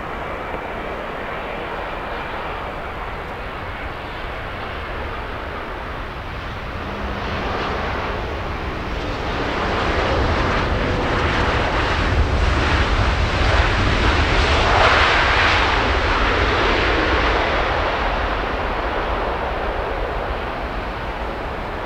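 Long-haul jet airliner on final approach passing close by: the engine noise swells to a peak a little past the middle, then fades away.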